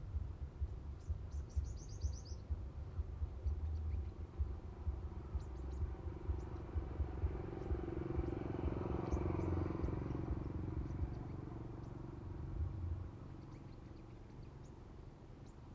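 Sunbird chirps: a quick run of high notes about a second in, then scattered short high chips, over a steady low rumble. A broad noise swells in the middle and drops away suddenly near the end.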